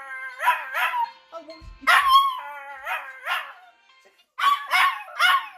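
Pet dog howling and yipping along to an alarm tune, a string of short calls that each slide down in pitch, with a brief pause about four seconds in.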